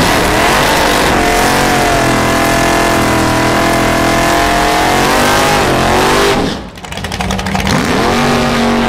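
First-generation Chevrolet Camaro drag car doing a burnout: the engine is held at high revs with the rear tyres spinning on the tarmac for about six seconds. Then the revs drop off abruptly, rise again briefly and settle to a steadier, lower running note.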